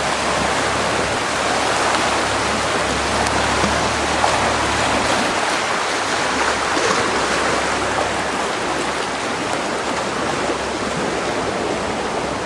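Fast-flowing floodwater rushing, a steady unbroken wash of water noise.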